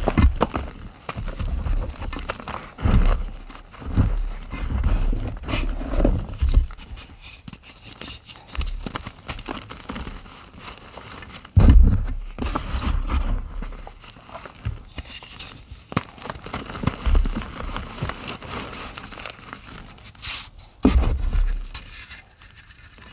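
Gym chalk being crumbled and crushed by hand close to the microphone: irregular crunching and crackling, with a few heavier thumps, the loudest about halfway through.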